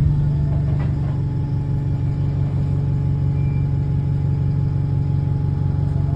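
Double-deck bus's diesel engine running steadily, heard from inside the bus, with the engine note held level throughout. The bus has an exhaust leak.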